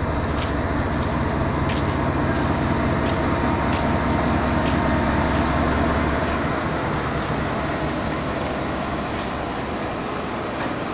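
GEU40 diesel-electric locomotive running as it rolls slowly along the platform, with light clicks about every second from the wheels. The engine's low drone eases off about six seconds in as the locomotive draws to a stop.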